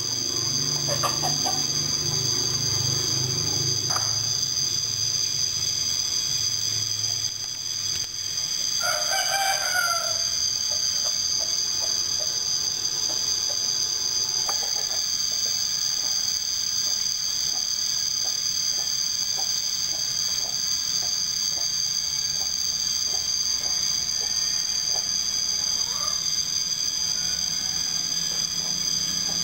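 A rooster crowing once, about nine seconds in, followed by a run of short repeated clucks. Under it runs a steady high-pitched drone.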